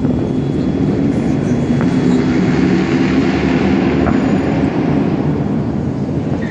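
A loud, steady low rumble that swells a little in the middle, with a couple of faint sharp pops, about two and four seconds in, from the distant fireworks.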